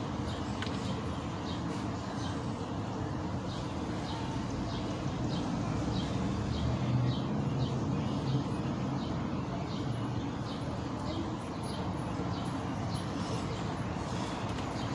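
Outdoor background rumble with a short, high chirp repeating evenly about twice a second.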